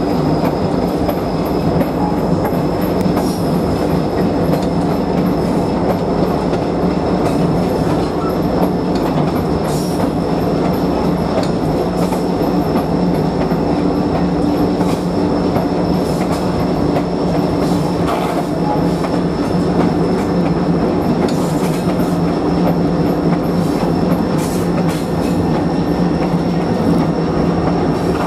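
Passenger train hauled by an Alco S-4 diesel switcher rolling along the track: a steady rumble with irregular clicks over the rails and a thin, steady high-pitched whine.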